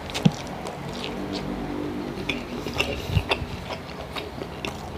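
A man chewing spicy chicken-innards adobo with rice, making wet smacking and clicking sounds of lips and tongue. There is a sharp smack just after the start and a soft thud about three seconds in.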